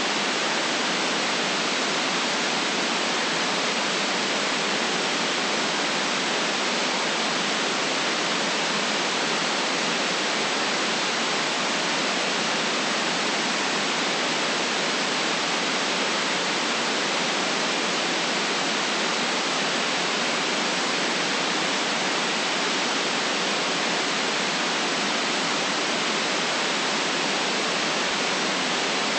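Steady, unchanging white noise: an even hiss with little bass and no top end above the treble.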